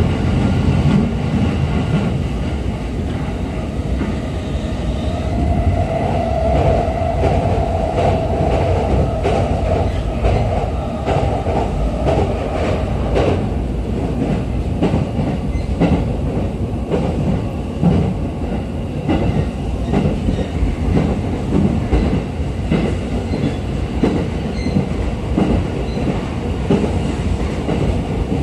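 Running noise inside a JR East E531 series commuter train car at speed: a steady rumble of wheels on rail with repeated clacks over rail joints and points. A faint whine rises above the rumble for several seconds in the first half.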